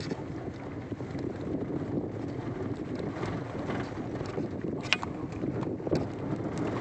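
Wind buffeting the microphone over the rumble of a vehicle driving along a sandy dirt track, with a few short knocks and rattles, the sharpest about five seconds in.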